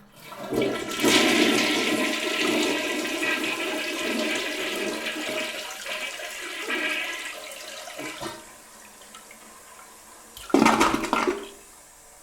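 Toilet flushing: a loud rush of water that builds over the first second, runs for several seconds, then tails off. A brief, loud second rush comes near the end.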